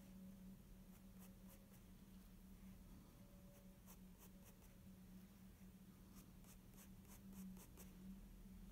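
Faint scratching of a Staedtler graphite pencil on sketchbook paper, in bursts of quick, short strokes, over a steady low hum.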